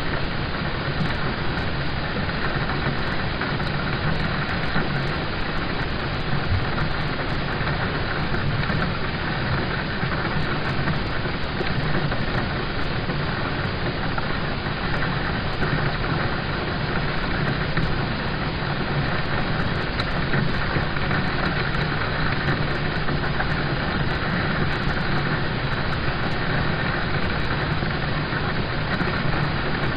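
Rain falling on a car's roof and windows, heard from inside the cabin as a steady, unbroken hiss.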